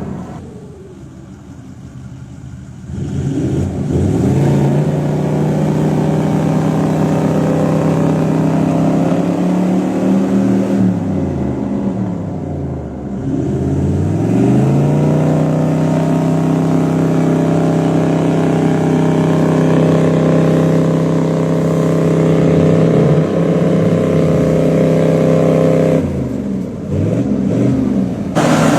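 Toyota LandCruiser's 4.5-litre V8 engine under heavy throttle. Its revs drop and climb back several times and are held high for long stretches in between.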